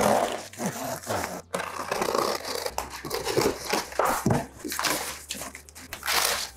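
Large cardboard box being slit open and its flap pulled back, with irregular scraping, rustling and crackling of cardboard and of the thin foam sheet wrapped over the mirror inside.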